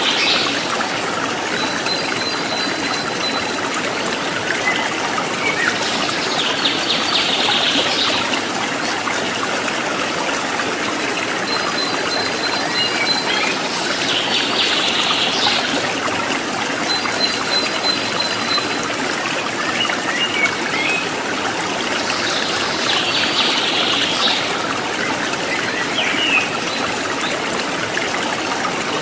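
Running stream: a steady trickling rush of water, with short high chirps that recur about every eight seconds.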